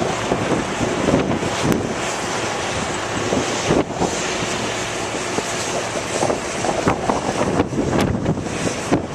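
Vehicle driving over a rough, rocky dirt track, with steady tyre and road noise and irregular bumps and rattles, and wind on the microphone.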